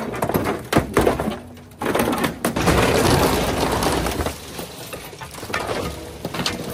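An excavator bucket crushing a scrapped car: sheet metal crunching and creaking with glass cracking. Several sharp cracks come in the first two seconds, then a longer, denser crunching as the body folds, easing off near the end.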